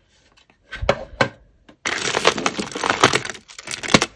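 A hand rummaging through a tub of mixed costume jewellery, with beads, chains and metal pieces clinking together: a few clicks about a second in, then a dense rattle for about two seconds.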